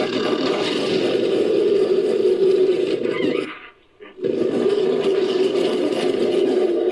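Designed creature sound effect for an Appalachian devil monkey, mixed from ape and monster vocal recordings: a long, continuous call that breaks off for under a second about halfway through, then resumes.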